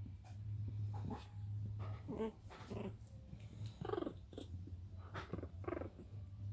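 Pomeranian puppies under four weeks old growling and yipping as they play-fight, a string of about ten short bursts, over a steady low hum.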